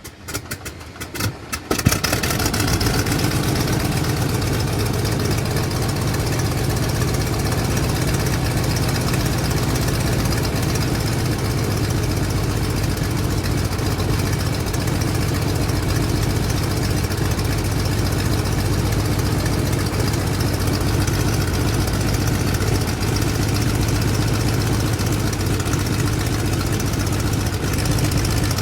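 Airplane engine catching after a few uneven pulses about two seconds in, then running steadily and loud, with a strong low hum.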